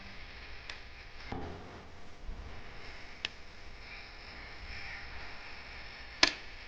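Maine Coon kittens at play, heard only as faint scuffling with a few light taps and one sharp knock near the end.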